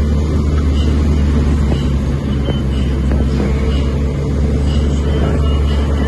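Engine and road noise of a vehicle driving, heard from inside the cab: a steady low drone.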